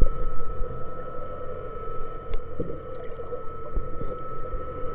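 Underwater sound picked up by a submerged camera: a steady low rumble with a constant mid-pitched hum, and a few faint clicks.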